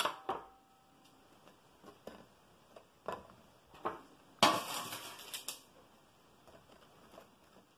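Baking tray and pretzels knocking and clinking against a ceramic plate as the pretzels are set down, in a few scattered knocks, with a louder rough noise lasting about a second about four and a half seconds in.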